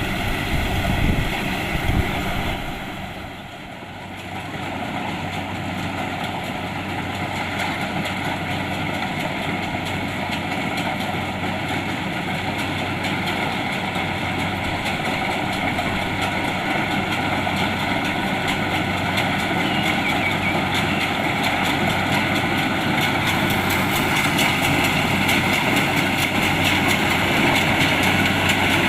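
Kubota DC-70 Plus rice combine harvester running steadily, its diesel engine and threshing machinery droning. The sound dips briefly a few seconds in, then slowly grows louder toward the end.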